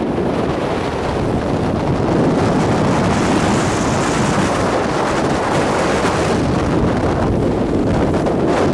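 Steady rushing of wind over the microphone, mixed with a snow tube sliding fast over groomed snow on a ride down a tubing run.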